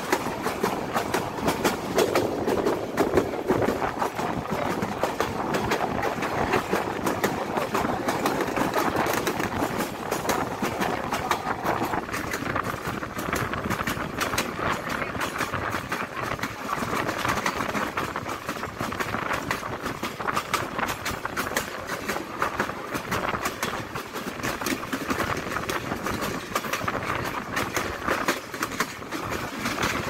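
Intercity passenger train coach running along the line: a steady rushing noise with a fast, continuous clatter of wheels over the rails, heard from just outside the coach window.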